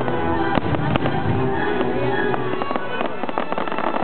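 Fireworks bursting and crackling over the show's music soundtrack, with two sharp bangs about half a second and one second in, then a run of smaller cracks.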